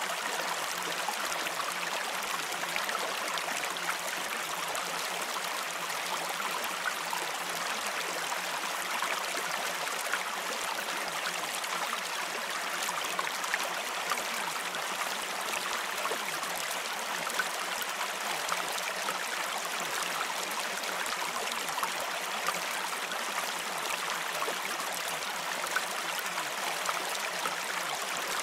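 Steady pond water ambience: an even wash of trickling water, with many small drips and splashes.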